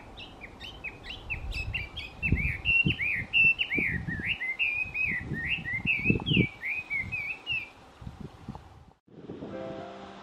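Chinese hwamei singing a fast, loud run of varied whistled phrases that swoop up and down in pitch, for about eight seconds, with a few low thuds on the microphone. The song stops and background music begins near the end.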